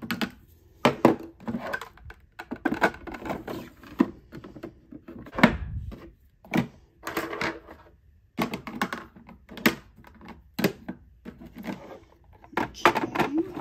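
Makeup containers and a clear acrylic organizer tray being handled on a desk: an irregular run of plastic clicks, taps and knocks, with one heavier thump about five and a half seconds in.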